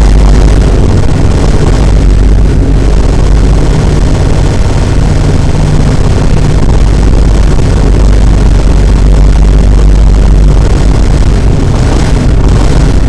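A very loud, steady roaring noise with a heavy low rumble, filling the whole range from deep bass to hiss, like a blown-out engine or jet roar.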